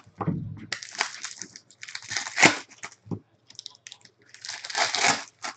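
Cellophane wrap and foil trading-card packs crinkling as hands handle them, in several bursts, loudest about two and a half seconds in and again near the end.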